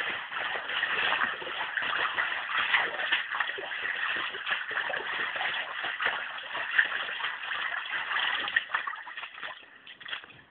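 Floodwater splashing and sloshing in a dense, continuous stream of splashes that thins out to a few separate splashes in the last two seconds.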